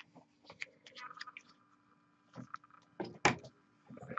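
Scattered light clicks and taps of painting supplies being handled, with a louder cluster of knocks about three seconds in.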